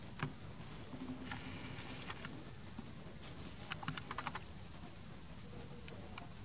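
A steady high-pitched insect drone in the background, with scattered light clicks and rustles as baby macaques scramble over bark and leaves, including a quick run of clicks about four seconds in.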